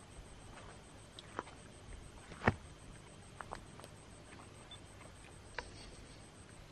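Campfire crackling: a few sharp, scattered pops, the loudest about two and a half seconds in, over a faint steady background.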